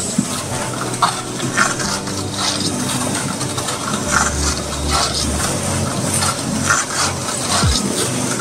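Electric pan mixer with a 120 cm steel pan running, a steady motor hum under its rotating paddles scraping and churning damp sand-and-cement block mix, with irregular gritty clinks.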